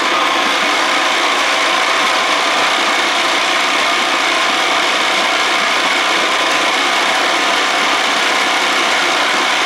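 1979 Evinrude 55 hp two-stroke outboard running steadily in a water test tank.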